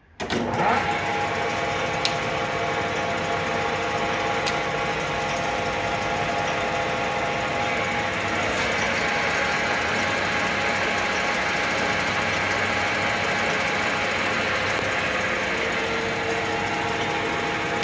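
1960 LeBlond Regal gear-head lathe starting up just after the start and then running steadily, driving its power cross feed. It makes an even mechanical hum of several steady tones, with a few faint clicks.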